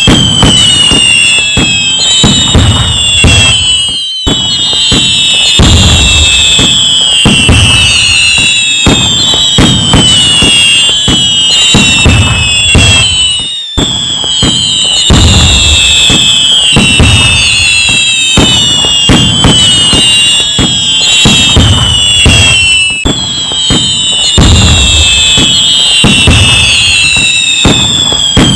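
Dense fireworks barrage: repeated bangs and low booms mixed with whistling shells, a new whistle every second or two, some falling in pitch. It cuts out briefly about four and again about fourteen seconds in.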